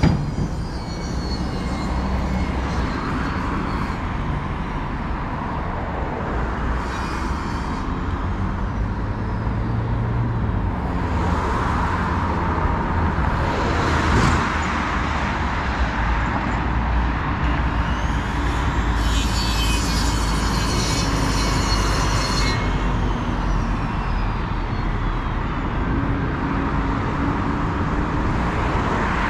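Street traffic: cars driving by on a wide city avenue over a steady low rumble, one passing louder about halfway through.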